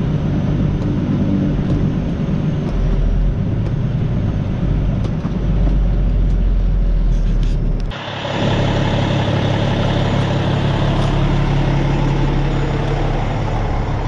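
Truck engine running with road noise, a steady low hum under a haze of hiss. About eight seconds in, the sound breaks off briefly and comes back with a steadier hum and more hiss.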